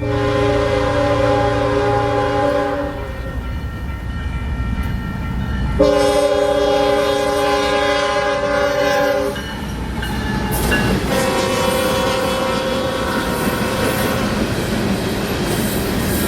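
Fouled locomotive air horn sounding a series of long blasts over the rumble and clatter of the passing train. The horn's chord comes out off-key or distorted because one or more of its bells is fouled, and its pitch changes on the last blast.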